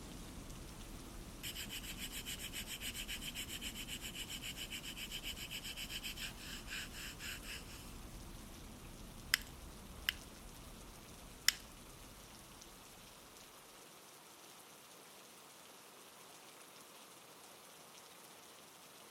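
Rapid back-and-forth rubbing strokes on a small handmade miniature piece, lasting about six seconds, followed by three sharp clicks, over a soft rain-like hiss.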